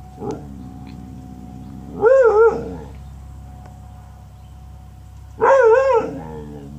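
A dog barking at a delivery truck: two drawn-out, wavering barks, each rising and falling in pitch twice, about two seconds in and again about three and a half seconds later.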